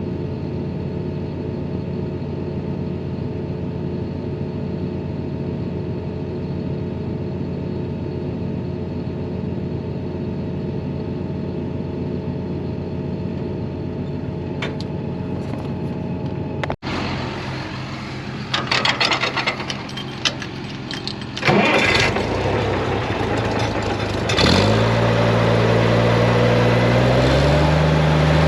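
Tractor engine running steadily with an even hum; after a sudden break, a few clanks and clicks, then an already-warm engine starts about three quarters of the way through and its speed rises twice in steps.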